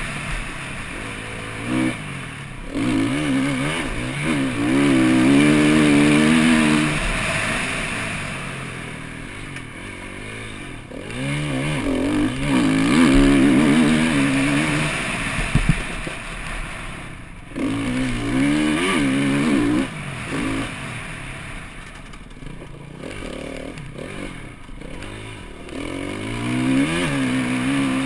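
KTM EXC-F four-stroke enduro motorcycle engine revving hard and easing off again and again, its pitch climbing and falling with each burst of throttle; the strongest pulls come about 3 to 7 seconds and 12 to 15 seconds in.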